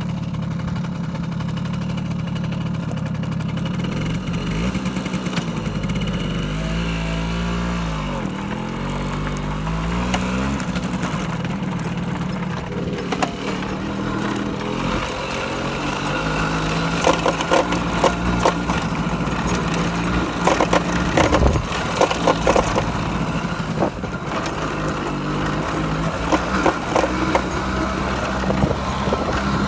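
Simson SR50 scooter's two-stroke engine running, its pitch rising and falling, with repeated sharp clattering knocks that grow dense in the second half: the telescopic front fork rattling over rough cobblestones.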